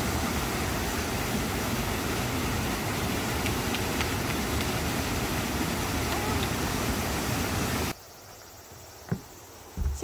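Mountain stream cascading over boulders into a rock pool: a steady rush of water that cuts off suddenly about eight seconds in, leaving a much quieter background with a single knock.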